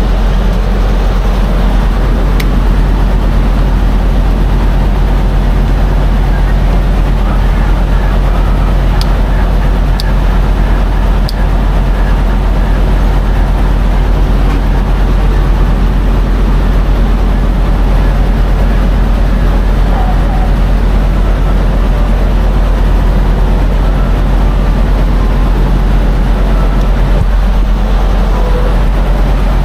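Steady low hum of an idling diesel engine, mixed with fuel rushing through a high-flow diesel nozzle into a semi-truck's tank, with a few light clicks around the middle.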